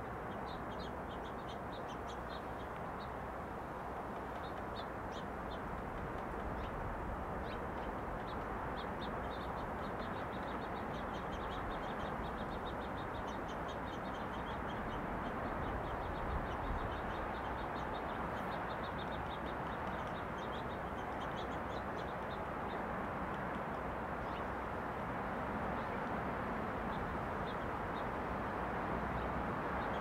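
Steady wind rushing through pine trees, growing slightly louder, with runs of short, high chirps from small birds throughout.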